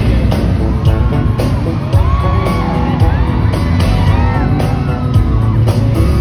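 Live pop band playing loudly, with keyboard and drums, while the crowd screams and whoops over it in many overlapping rising and falling cries.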